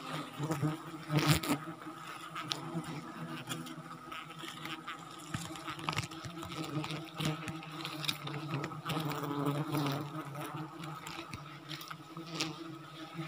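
Flying insects buzzing close by, a steady low drone that wavers slightly in pitch, with scattered light clicks and rustles.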